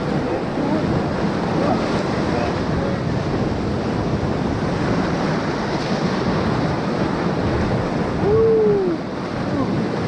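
Whitewater of a river rapid rushing and churning around an inflatable raft as it runs the rapid. A single short shout rises and falls about eight seconds in.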